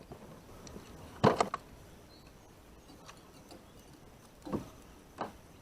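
Handling noises: a few short knocks, the loudest about a second in and two softer ones near the end, with faint ticks between.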